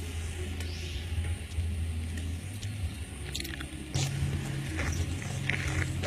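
Steady low outdoor rumble of background noise, with a few faint clicks and short high chirps over it. The rumble shifts about four seconds in.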